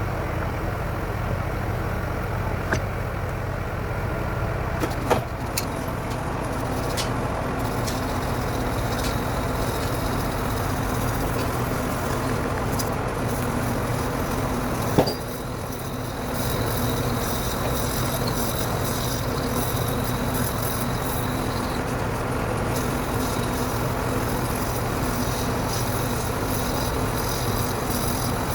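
Truck engine running steadily, with a sharp click about five seconds in and another about fifteen seconds in, after which the sound dips briefly.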